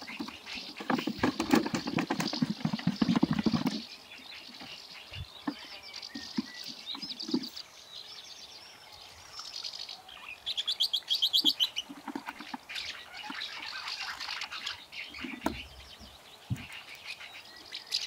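Small songbirds chirping and singing, with a fast trill a little after ten seconds in. Near the start there is a louder spell of a few seconds of handling noise from bottles and buckets being moved about.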